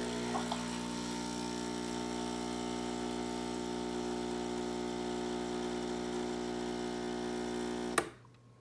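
Gaggia Babila super-automatic espresso machine running in its brewing cycle: a steady buzzing hum, a little loud, that cuts off suddenly near the end.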